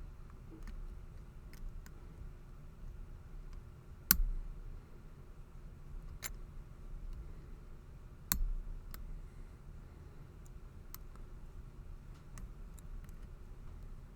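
Lock pick and tension wrench working the pins of a Master Lock No. 19 padlock fitted with security pins: scattered small metallic clicks, a few louder ones, the loudest about four seconds in.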